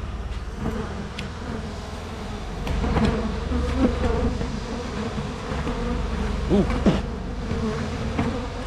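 Swarm of honey bees buzzing in a steady hum around an open hive while they are brushed off a comb frame. Two bees fly close past the microphone about two thirds of the way in, their buzz rising and falling in pitch. The bees are agitated by the brushing.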